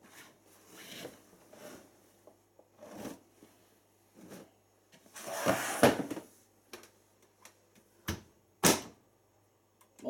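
Towels and bedding being stuffed into the drum of a front-loading washing machine: fabric rustling and bumping in uneven bursts, loudest about halfway through. Near the end the porthole door is pushed shut, with two sharp clicks as it latches.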